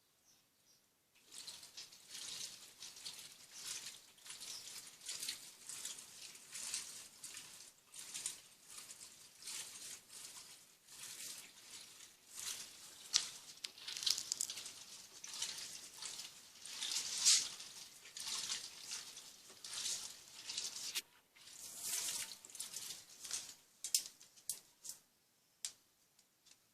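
Water splashing and rushing in the tub of a Turbo Economia 15 kg washing machine, coming in uneven surges that start about a second in.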